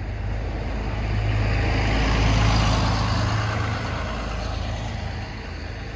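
A motor vehicle driving past: its engine and tyre noise swell to a peak about two and a half seconds in, then fade.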